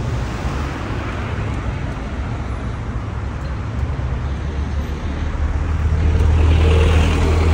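Road traffic noise from slow, congested city traffic: a steady rumble of engines and tyres, with a deeper engine drone from a nearby vehicle growing louder near the end.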